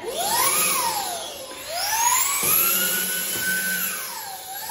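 Handheld electric vacuum suction tool's pump motor whining as it grips and lifts a magnetic LED display module out of the front of the cabinet. The whine climbs quickly, sags, climbs again and holds for a couple of seconds, then dips and rises once more, with a single click about halfway through.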